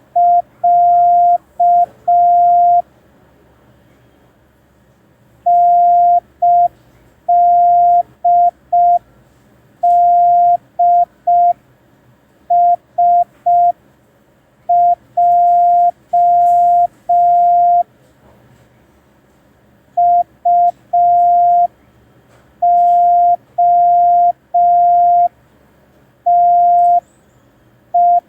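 Morse code practice tone sending a receiving exercise: a single steady beep keyed into dots and dashes, the letters coming in short groups separated by pauses of a second or two.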